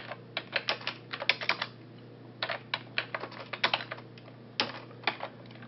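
Typing on a computer keyboard: quick clicking keystrokes in three short runs, entering a command at a prompt.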